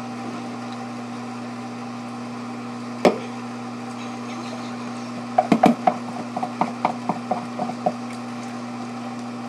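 Microwave oven running with a steady low hum. A single sharp knock about three seconds in, then a quick run of light clicks and knocks from about five and a half to eight seconds in.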